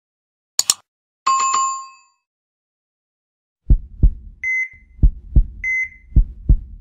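Intro sound effects: a single mouse click and a short bell-like chime that rings out, then a countdown in which each second brings a deep double thump like a heartbeat followed by a short high beep.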